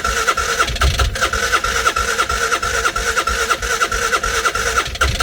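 Massimo T-Boss 550 UTV engine cranking on the starter in fast, even pulses without catching: a crank-no-start condition where it tries to fire but won't run.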